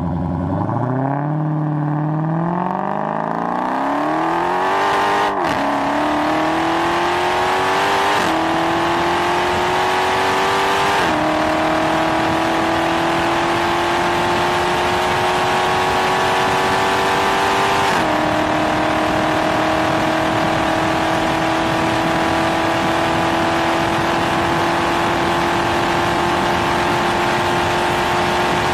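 Dodge Challenger Hellcat's supercharged 6.2-litre V8 at full throttle from a standstill, heard from inside the cabin. The engine note climbs steadily, drops with four upshifts about 5, 8, 11 and 18 seconds in, and then rises slowly through a long pull in a high gear.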